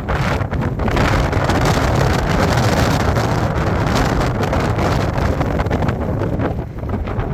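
Loud wind noise buffeting the microphone, a dense rushing that flutters unevenly and eases slightly near the end.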